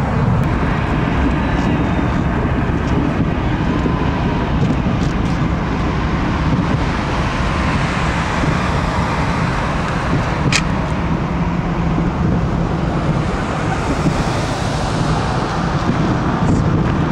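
Steady rumble of road traffic mixed with wind on the microphone. A brief high chirp sounds about ten and a half seconds in.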